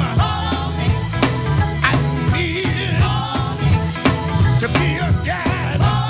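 Live soul band playing: a woman sings lead over an electric bass line and a steady drum-kit beat.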